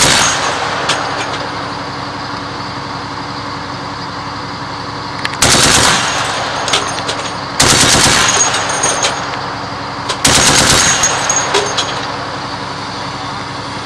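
Short machine-gun bursts from a quadcopter's .50 Browning gun: one right at the start, then three more a couple of seconds apart. A steady hum runs underneath.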